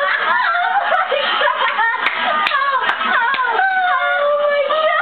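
A small group of people laughing and calling out excitedly, with three sharp hand claps about two to three seconds in.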